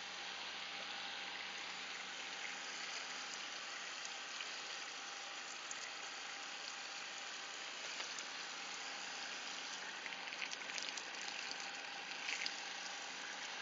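Water spraying steadily from a standard shower head fed by a 12 V caravan water pump, with the pump's low steady hum underneath. The spray patters more loudly for a couple of seconds near the end.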